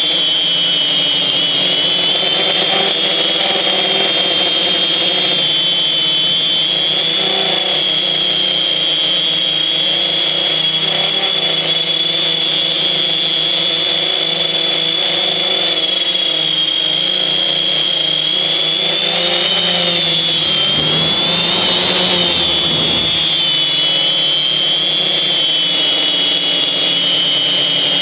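Quadcopter's electric motors and propellers recorded from on board, a steady buzzing drone with a high whine above it, its pitch wavering up and down as the throttle changes. A low rumble joins in for a couple of seconds about two thirds of the way through.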